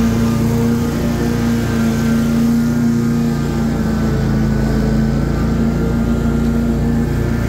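Lawn mower engine running steadily at constant speed, a loud even drone.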